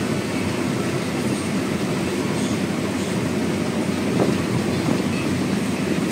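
Claas Lexion 750 combine harvester running steadily while harvesting corn with a 12-row corn header: a continuous, dense mechanical noise of engine and machinery with some clatter.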